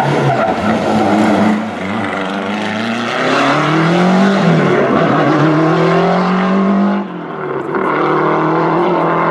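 Classic rally car's engine accelerating hard out of a hairpin, its revs climbing and falling through the gears. There is a sudden drop in revs about seven seconds in.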